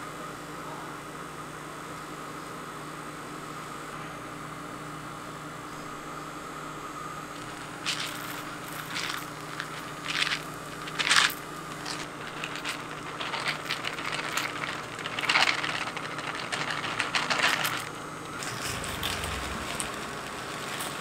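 Steady machine hum, then from about eight seconds in, dry cereal pieces scattered by hand onto cotton candy in irregular rattling, crackling clicks.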